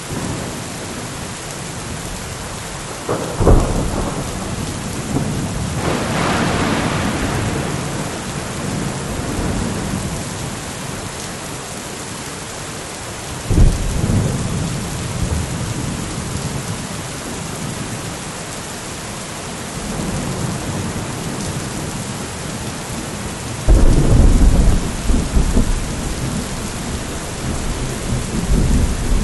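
Steady rain with thunder rolling in several times. There is a sharp crack about three seconds in, another sudden rumble around thirteen seconds, and the loudest, longest rumbling near the end.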